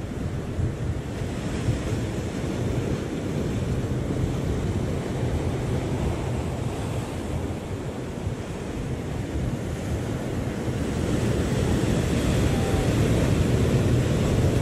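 Sea surf breaking and washing against shoreline rocks, with wind buffeting the microphone. The surge grows louder in the last few seconds.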